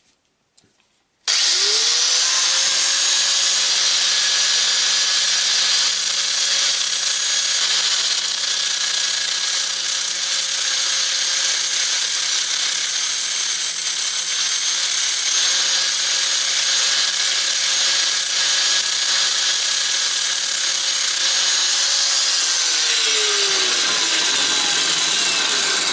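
Electric angle grinder switched on about a second in, its whine rising as it spins up, then running steadily while its abrasive disc grinds a coin held in old pliers to thin it; near the end the whine falls as the motor winds down.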